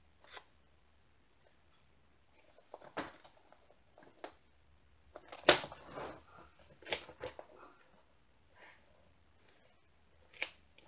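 Faint handling sounds of a diamond painting canvas and its frame being lifted, shifted and set down on a cutting mat: scattered light taps and rustles, the loudest about five and a half seconds in.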